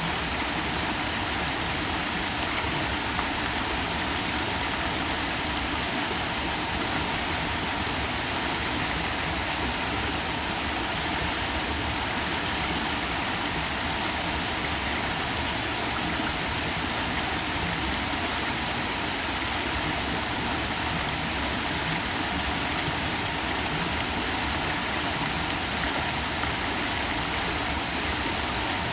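Small waterfall cascading over stone ledges into a shallow pool: a steady rush of falling and splashing water.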